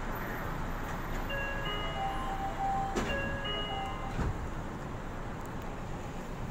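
Yui Rail monorail standing at the platform with its steady hum, while a short electronic chime melody of stepped notes plays for about two seconds. Two clunks follow, a second apart, as the doors close before departure.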